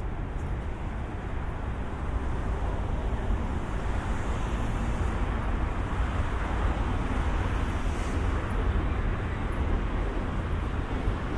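Steady city road traffic noise: a continuous rumble and hiss with no single vehicle standing out.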